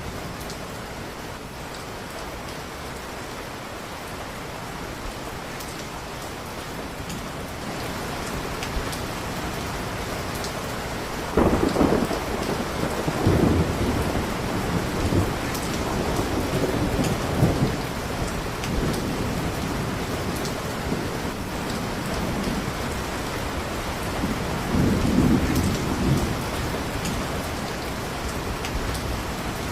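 Steady heavy rain with thunder. A sudden clap about a third of the way in rolls on in waves for several seconds, and a second rumble comes later.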